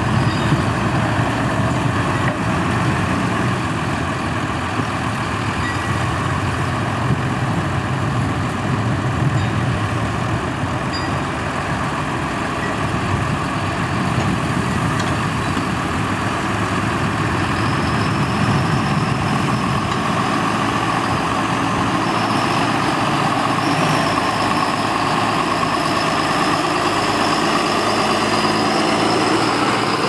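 Diesel engines of John Deere tractors running steadily under load as they pull mounted reversible ploughs through stubble, with a faint high-pitched whine joining a little past halfway.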